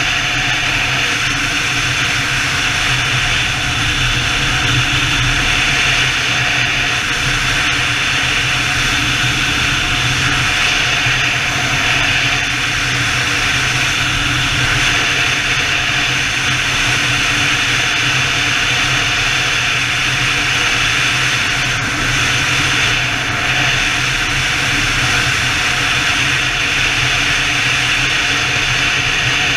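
Engine and wind noise from a BMW touring motorcycle cruising at highway speed: a steady rushing drone with a constant low hum, wind buffeting the bike-mounted camera's microphone.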